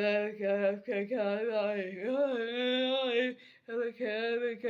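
A single voice singing unaccompanied, a wordless melody in about four held phrases with short breaks between them, the pitch swooping up a little past halfway.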